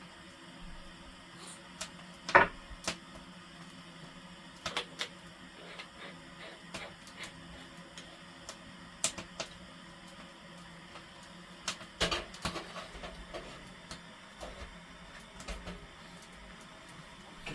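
Firewood burning in a wood stove, crackling with scattered sharp pops over a faint low hum; the loudest pop comes about two seconds in and a quick cluster of pops follows around twelve seconds.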